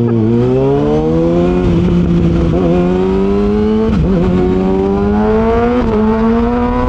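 Kawasaki ZX-6R inline-four engine through an SC Project exhaust, heard from on board while riding. The engine note climbs steadily under acceleration, with three short dips in pitch along the way.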